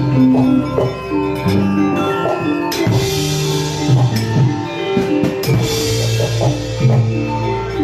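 Javanese gamelan playing: ringing metallophone notes held and changing in a steady pulse, with hand-drum (kendang) strokes running through it.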